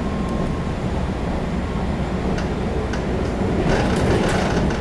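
Taiwan Railway EMU700 electric multiple unit running, heard from inside the passenger car: a steady rumble of wheels on rail with a few faint clicks. A louder, hissing rush of running noise comes in near the end.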